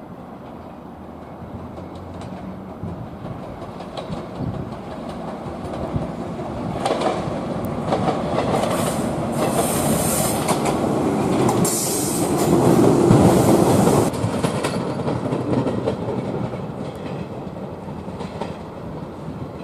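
Two-car Joshin Electric Railway 700 series electric train (former JR 107 series) running past with its wheels clacking over the rail joints. The sound builds to its loudest about two-thirds of the way through, with high wheel squeal in the middle as the train passes close on the curving track, then fades.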